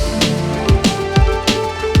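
Background electronic music with a steady drum beat and sustained synth notes.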